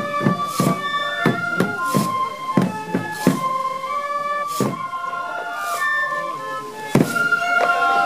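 Japanese bamboo festival flutes (shinobue) playing a melody of held, shifting notes, with irregular drum strikes accompanying the shishimai lion dance; one loud strike comes about seven seconds in.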